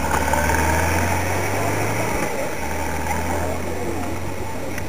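Low, steady rumble of a motorcycle engine idling, dropping out briefly about two seconds in, with faint voices of people chatting in the background.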